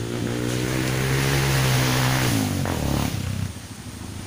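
Motorcycle engine running under throttle close by as it rides through a shallow stream, with water splashing. About three seconds in the engine note drops and fades out, leaving the steady rush of the stream.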